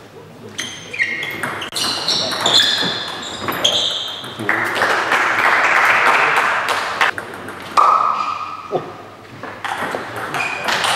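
Table tennis rally: the celluloid ball clicking off bats and table, with sneakers squeaking sharply on the wooden sports-hall floor. A stretch of noisier hall sound about halfway through as the point ends.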